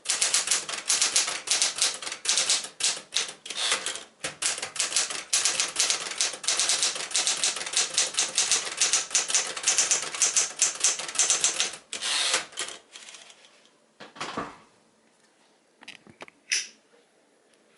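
Smith-Corona Super Sterling manual portable typewriter being typed on quickly: a dense run of keystrokes that stops about twelve seconds in. A few separate clunks and clicks from the machine follow.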